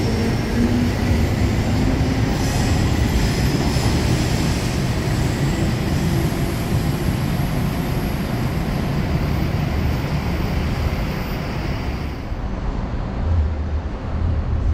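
Belo Horizonte Metro electric train running on the rails: a loud, steady rumble of wheels on track, with a motor whine gliding down near the start and a thin high squeal from the wheels a few seconds in.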